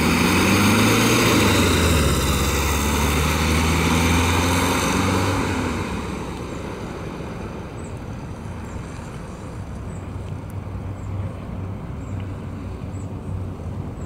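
1979 Volkswagen Beetle's air-cooled 1600cc flat-four engine pulling away, its pitch rising as it accelerates. About six seconds in it drops to a quieter, steady running sound as the car moves off.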